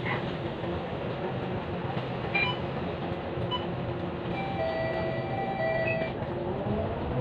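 Bus engine idling while the bus stands still, a steady low hum. Midway a high electronic chime sounds for about two seconds. Near the end a rising whine begins as the bus starts to pull away.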